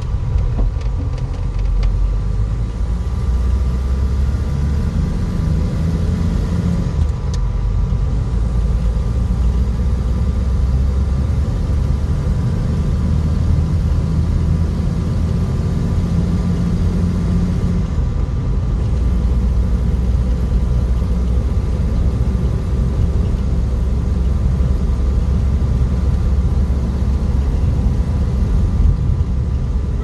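Cabin noise inside a moving 1951 Nash Statesman: the low, steady rumble of its flathead straight-six engine and the road, swelling and easing a little as the car drives, with a faint steady hum above it.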